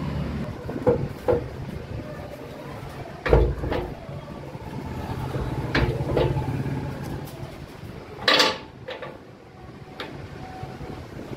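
A bent motorcycle front fork tube of hard chromed steel clanking against the steel V-blocks and bed of a straightening press as it is set and turned. The knocks come mostly in pairs about half a second apart, and the loudest clatter comes about eight seconds in, all over a steady low hum.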